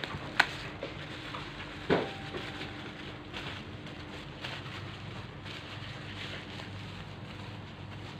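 Handling noises from unboxing a phone touchscreen part: a sharp click, then a louder knock about two seconds in, and a few light taps and rustles over a steady background hum.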